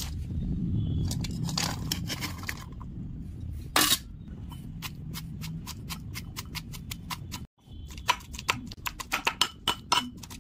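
Metal pestle pounding chopped onion, garlic and ginger in a metal mortar: repeated metallic knocks that come quicker near the end.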